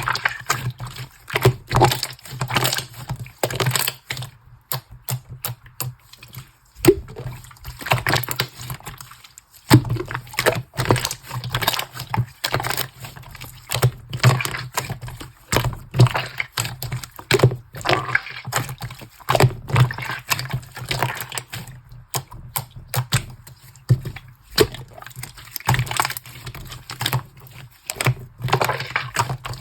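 Slime being squished and stretched by hand, with a continuous run of wet clicks, crackles and small air-bubble pops.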